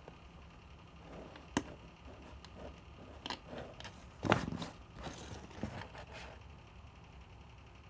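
Handling noise from a sneaker being held and turned over in the hand: scattered soft knocks, taps and rubbing on the rubber sole, with a few louder clicks, the strongest about four seconds in.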